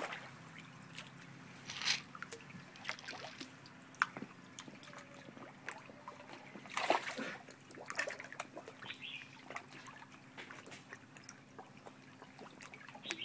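Koi splashing and gulping at the pond surface as they feed, a scatter of irregular small splashes and slurps.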